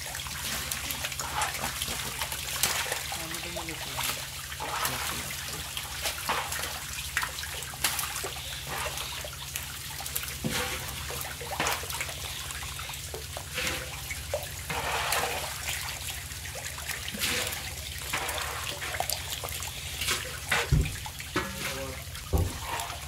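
Wet splashing and slapping of a crowd of live deshi catfish thrashing in shallow water, irregular and continuous, with a few louder slaps near the end. A steady low hum runs underneath.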